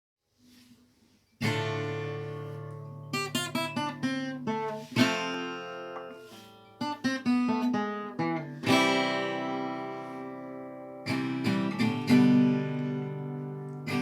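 Acoustic guitar introduction: strummed chords left to ring out, with quick runs of strokes in between, starting after a short silence.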